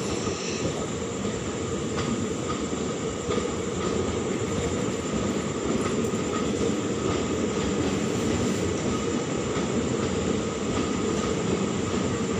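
Indian Railways sleeper-class passenger coaches running past at speed along a station platform: a steady, dense rumble and rattle of wheels on the rails.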